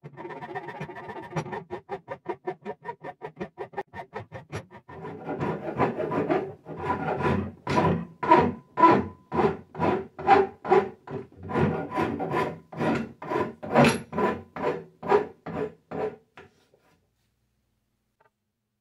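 Four-in-hand wood rasp filing a debarked cherry walking stick, shaping its handle. Quick short strokes for the first few seconds, then louder, longer strokes about two a second, stopping near the end.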